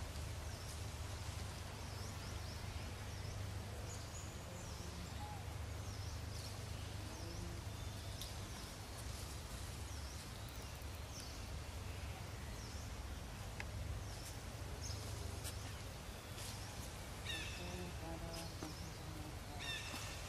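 Outdoor ambience: a steady low rumble with small birds chirping now and then, high and short. Near the end come a few brief pitched calls.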